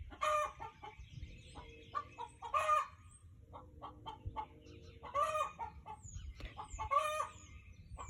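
A hen's egg-laying song: strings of short clucks that break every two to three seconds into a loud, drawn-out squawk, four times over. It is the cackle hens typically give just before or just after laying an egg.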